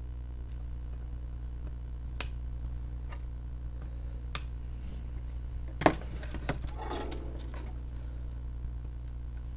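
Flush side cutters snipping the leads of freshly soldered capacitors on a circuit board: two sharp clicks about two seconds apart, then a short clatter of tool handling around six seconds in, over a steady low hum.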